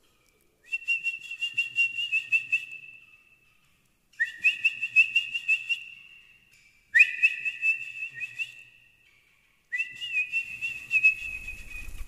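A trilling two-tone whistle call, sounded in four separate bursts of two to three seconds each, used as a lure call to bring a young sooty-headed bulbul to the hand.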